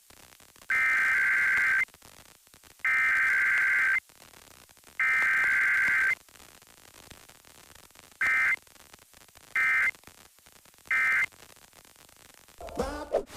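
Emergency Alert System SAME data bursts: the shrill two-tone digital header sent three times, about a second each, then three short end-of-message bursts about 1.4 s apart, with faint static between. No attention tone or voice message comes between header and end-of-message, as in a Required Weekly Test.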